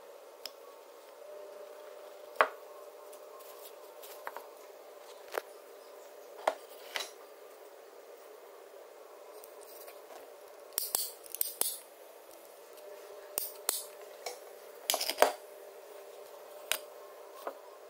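Metal drill housing and parts handled on a workbench: scattered clicks and clinks, with quick bursts of clattering about eleven seconds in and again around fifteen seconds. A steady hum runs underneath.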